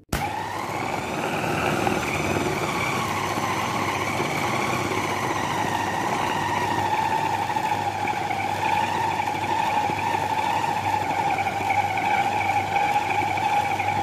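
Electric bowl food chopper switching on abruptly and running steadily, its blades grinding raw beef mince with onion and spices into a fine kofta paste. The motor's whine dips slightly in pitch about halfway through.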